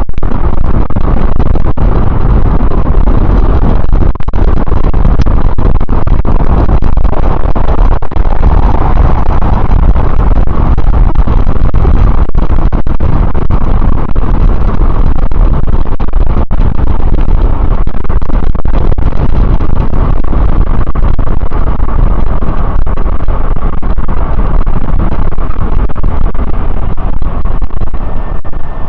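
Loud, deep wind buffeting on the microphone of a camera riding on a moving e-bike, nearly swamping everything else, with traffic noise beneath. It eases near the end.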